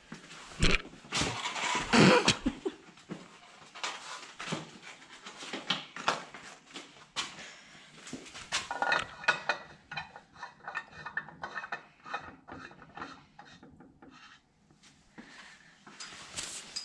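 Handling noises of clinks, taps and knocks as an LED Edison bulb is screwed into a metal barn-light shade, with a couple of heavier thumps about a second or two in.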